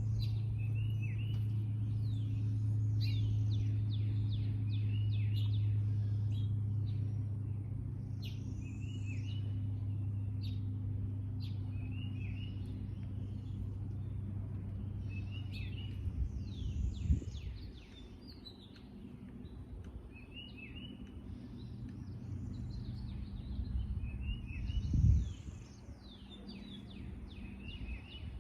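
Songbirds singing in a backyard, short chirping phrases and downward sweeping notes recurring every few seconds. Beneath them a steady low hum that fades out a little over halfway through, and two low thumps, the louder one near the end.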